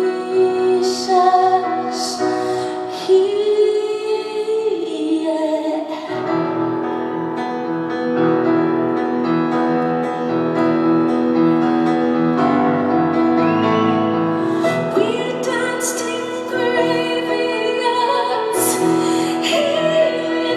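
A woman singing long, held lines over piano accompaniment in a live performance.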